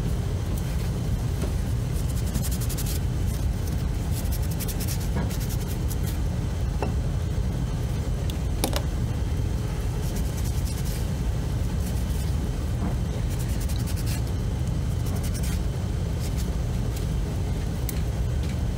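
Steady low rumble throughout, with several short bouts of fine scratchy clicking, like rubbing and scrubbing on the small plastic key fob case while cleaning it with alcohol.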